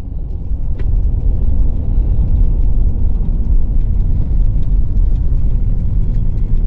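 Steady low rumble of a car in motion, with a few faint ticks.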